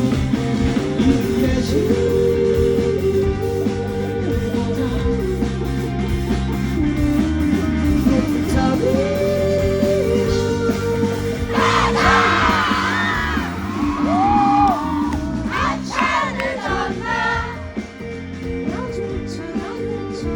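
Live rock band playing with singing. About two-thirds of the way through, high yelling voices rise over the music for a few seconds.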